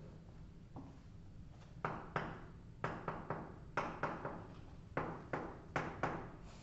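Chalk on a blackboard as lines are drawn: sharp taps, each followed by a short scrape, starting about two seconds in and coming irregularly, two or three a second.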